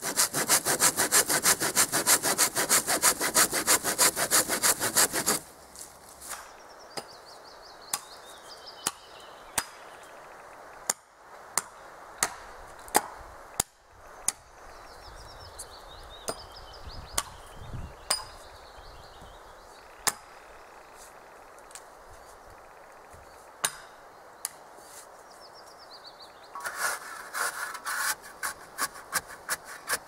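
Hand saw cutting wood in quick, even back-and-forth strokes for about five seconds, then stopping. There are scattered sharp clicks and knocks, and the sawing starts again near the end.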